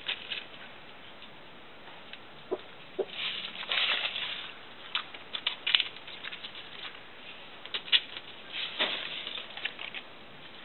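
Squirrel claws scratching and scrabbling on tree bark as it climbs, in irregular short bursts of clicks and rustles, the busiest about a third of the way in and again near the end.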